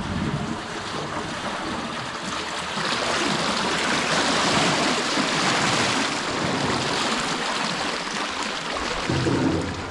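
Irrigation water rushing out of a pipe into a ditch, a steady rushing hiss that grows louder about three seconds in.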